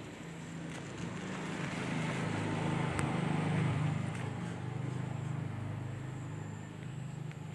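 A motor engine hums steadily nearby, growing louder over the first few seconds and then easing off, with a single sharp click about three seconds in.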